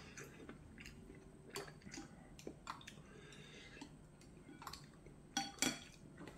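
Wooden chopsticks stirring ramyeon noodles in a ceramic bowl, making scattered light clicks and taps against the bowl, with a couple of louder knocks near the end.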